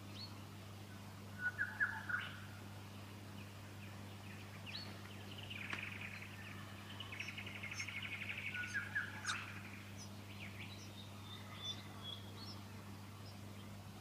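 A few loud short chirps about a second and a half in, then from about six seconds a rapid, buzzy rasping lasting about four seconds: fuscous honeyeater nestlings begging as an adult feeds them at the nest. Scattered short chirps follow.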